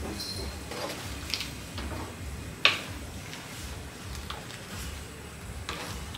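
A few light clicks and taps of kitchen utensils against a cooking pot over a low, steady kitchen hum, with the sharpest tap about two and a half seconds in.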